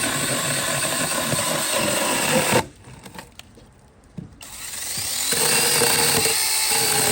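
Cordless brushless electric chainsaw running and cutting through dry wood. It cuts off abruptly about two and a half seconds in, then after a short pause with a click it spins back up and runs steadily again.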